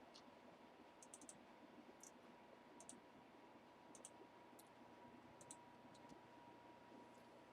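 Near silence, broken by faint sharp clicks, single or in quick pairs, about once a second, over a faint steady hum.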